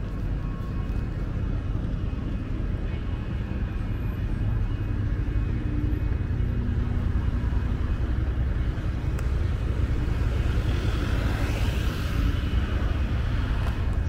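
City street traffic: cars driving past at night over a constant low rumble. About eleven seconds in, one car passes close, its tyre noise swelling and then fading.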